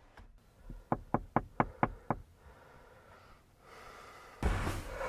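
A quick run of about six sharp knocks, roughly four a second, followed about two seconds later by a brief rush of noise near the end.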